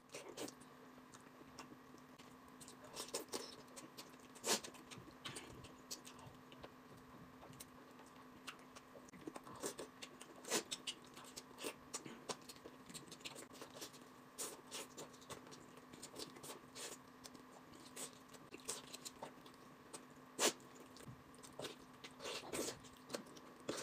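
Faint close-up eating: irregular wet smacks, bites and small clicks of chewing braised meat off the bone, a few louder than the rest. A faint steady hum runs underneath.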